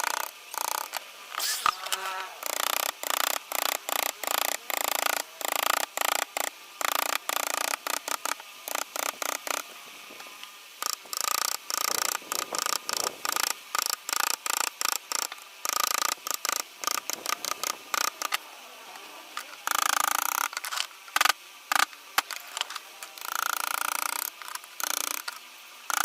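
A carving tool cutting wood in rapid short strokes, two or three a second, with a few longer cuts near the end.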